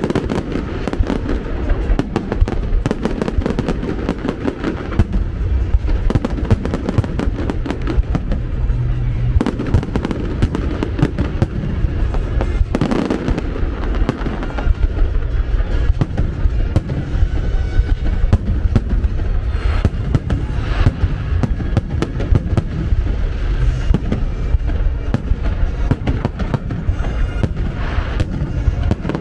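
Fireworks display: a dense, unbroken run of bangs, many to the second, with music playing underneath.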